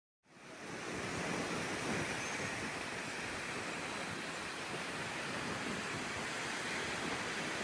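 Steady rushing outdoor noise that fades in from silence just after the start and then holds even.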